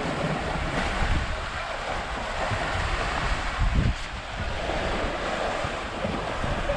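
Steady rush of water, with wind buffeting the microphone in low gusts, the strongest just before the middle.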